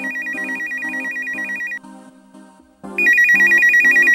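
Telephone ringing with an electronic trilling tone, about ten pulses a second. One ring lasts about two seconds, then after a short pause a second, louder ring starts about three seconds in.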